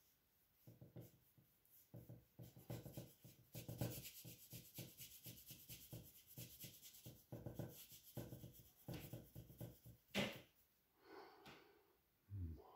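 Bristle paintbrush scrubbing oil paint onto the painting surface in quick, repeated short strokes, faint. A sharper tap about ten seconds in.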